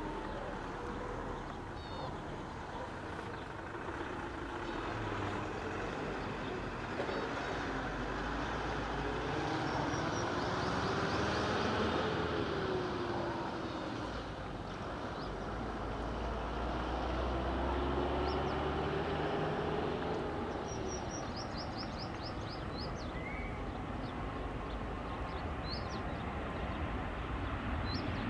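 Distant engine rumble that swells and fades twice, each time with a low tone rising and then falling, while small birds chirp now and then.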